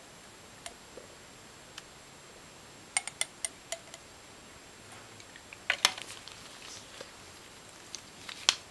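Light clicks and clinks of glass test tubes and a small glass vial being handled on a table. A single click comes now and then, with a quick run of about five clicks about three seconds in, and louder knocks near six seconds and again near the end.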